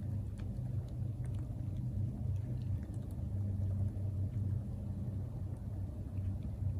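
A low, steady rumble with a faint hum, and a few faint ticks above it.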